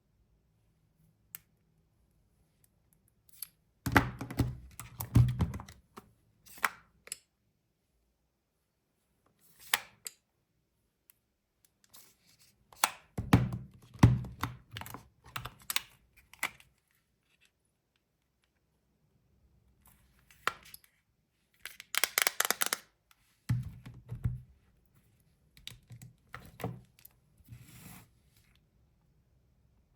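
Handling noise: clicks, taps and knocks of phones being picked up, tapped and set down on a hard surface. They come in several bursts with quiet gaps between.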